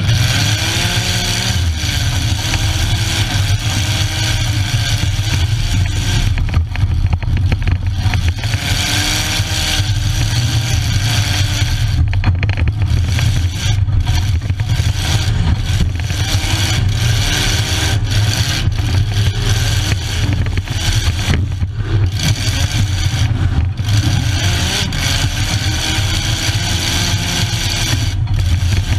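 Bump-and-run derby car's engine running hard, heard from inside the stripped cab: a steady low drone with the revs rising and falling again and again as the driver works the throttle, and scattered short knocks and rattles.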